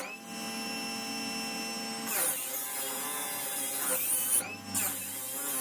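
Benchtop disc sander running with a steady motor hum. Twice a block of wood is pressed flat against the spinning sanding disc, giving a rasping hiss of sanding for a second or two each time, and the motor's pitch dips briefly under the load.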